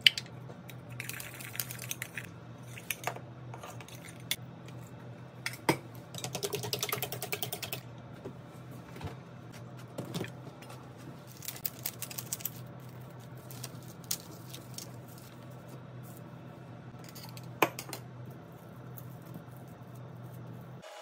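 Kitchen prep sounds: scattered light clicks and taps of utensils and dishes on the counter, with two short rapid clattering runs, over a low steady hum.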